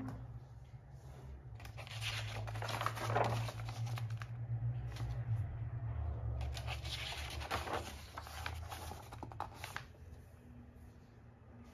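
Pages of a thick sketchbook being turned by hand: several papery swishes and rustles as the stiff, painted pages flip over.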